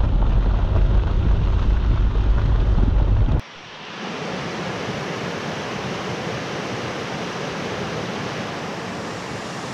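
A car rolling along a gravel road, a heavy low rumble with wind noise. About three and a half seconds in it cuts off abruptly to the steady rush of a rocky mountain creek flowing over stones.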